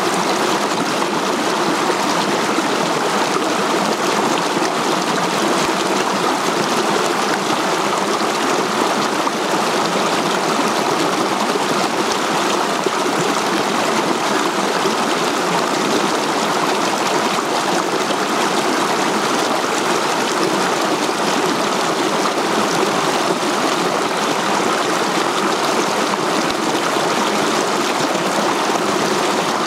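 Rocky mountain stream running over boulders in small cascades: a steady rush and splash of water.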